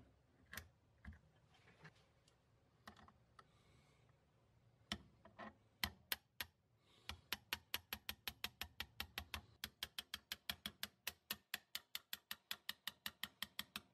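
Light hammer taps on a steel pin punch, driving the trigger plate pins into a shotgun receiver. A few scattered taps come first, then from about halfway on an even run of about four taps a second.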